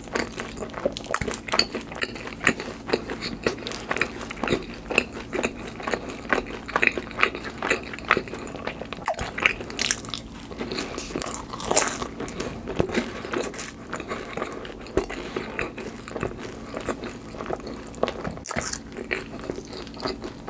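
Close-miked eating sounds: a person chewing cheese pizza topped with mashed avocado, with wet smacking and crunching. A louder bite into the slice comes about ten seconds in.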